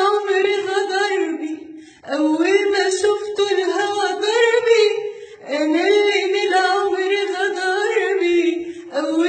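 A woman singing an Arabic song unaccompanied, in three long melodic phrases with short breath pauses between them.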